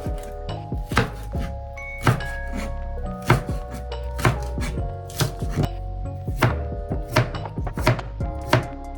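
Knife chopping food on a cutting board: sharp chops at an uneven pace of about two a second.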